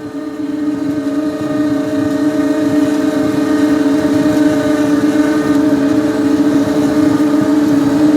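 An engine runs steadily with a strong droning hum. It grows louder over the first three seconds or so, then holds at a constant pitch.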